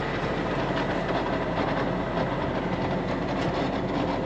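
Tractor engine running steadily while pulling a disc implement through the field.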